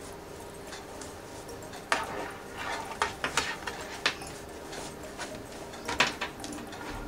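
Sewn fabric bag being handled and turned right side out: rustling cloth with a handful of sharp clicks and knocks, the loudest about two, three and six seconds in, over a steady hum.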